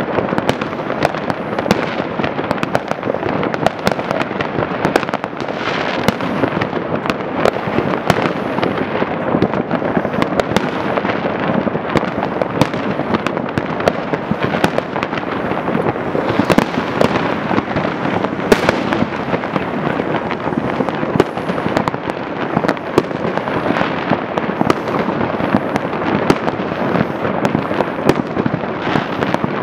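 Many aerial fireworks going off at once: a dense, unbroken barrage of overlapping bangs and pops.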